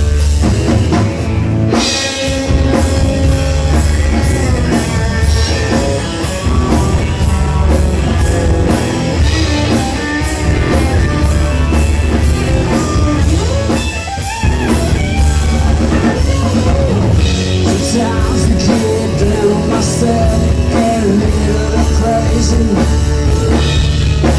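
Rock band playing live in an instrumental break: drum kit keeping a steady cymbal beat over bass and electric guitar.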